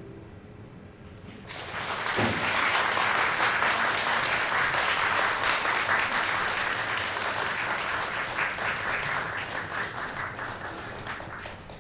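Audience applauding. The clapping starts about a second and a half in, holds steady, and thins out near the end.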